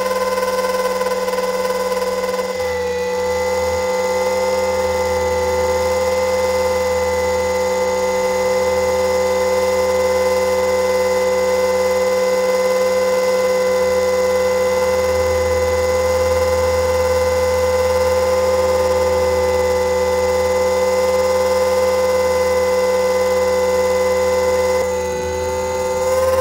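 RC helicopter's motor and rotor heard from its onboard camera: a steady high whine of several even tones, dropping slightly in pitch about three seconds in and rising again near the end.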